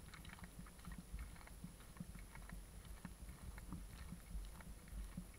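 Faint, irregular clicks and taps over a low rumble: walking noise from a dog and its owner on a paved path, picked up by an action camera held close to the ground.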